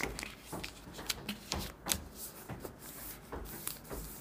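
A square of origami paper being folded and creased by hand against a wooden tabletop: soft rustling with scattered light taps and scrapes as the fingers press the fold flat.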